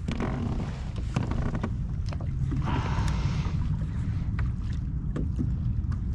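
Wind buffeting the microphone as a steady low rumble, with small waves lapping and slapping against the hull of a fishing kayak in short splashes. There is a louder slosh about three seconds in.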